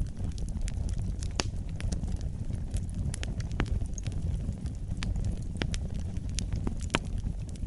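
Wood fire in a fireplace burning, with a steady low rumble of the flames and irregular sharp crackles and pops, about one or two a second.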